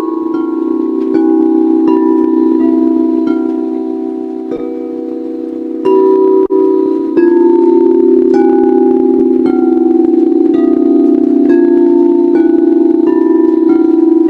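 Singing bowls: a steady, wavering low hum under a run of struck ringing tones at different pitches, roughly one strike a second. The hum grows louder about six seconds in.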